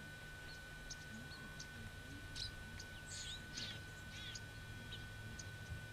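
Birds calling faintly: short, high chirps repeated throughout, with a few longer, more complex calls near the middle, over a steady high-pitched tone and a low hum.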